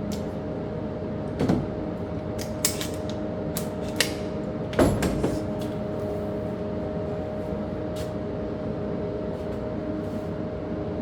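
Scattered sharp metallic clicks and clacks of a 9mm AR pistol being handled and checked after a malfunction, its trigger gone dead, over a steady hum.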